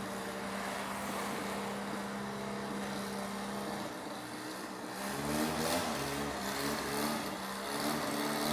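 A car engine running steadily, with a steady hum for the first few seconds and then a wavering, uneven sound from about five seconds in.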